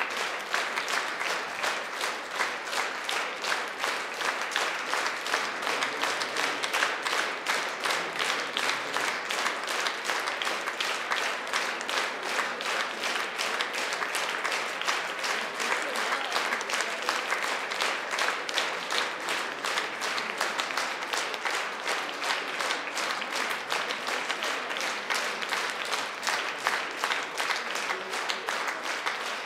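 A large concert audience applauding steadily, a dense, even sound of many hands clapping.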